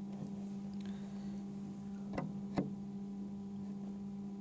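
Steady electrical hum with a row of higher overtones, with two light clicks about two seconds in, half a second apart.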